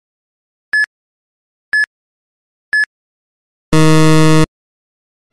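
Quiz countdown timer sound effect: three short, high beeps a second apart, then a loud, low buzzer for just under a second about three and a half seconds in, signalling time out.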